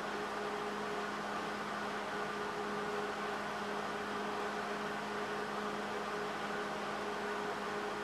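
Steady mechanical hum with an even hiss and a low drone, unchanging throughout.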